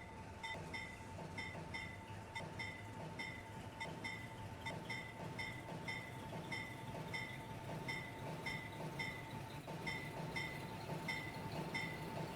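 A bell rings rapidly and evenly, about three strikes a second, in the way of a railroad grade-crossing warning bell. Under it runs a low steady rumble.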